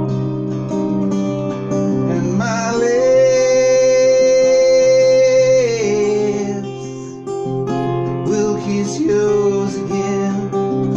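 Acoustic guitar strummed in steady chords while a man sings over it. About two seconds in, his voice slides up into a long, loud held note that lasts some three seconds, then drops to lower held notes.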